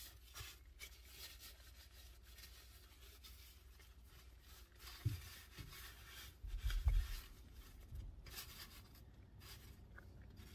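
Quiet eating and handling sounds: a paper napkin rubbing and rustling against the face and hands, with a few low bumps a little past the middle.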